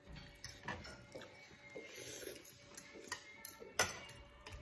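Forks and a spoon clinking against ceramic plates, several sharp clicks with the loudest near the end, over the soft sounds of people chewing noodles.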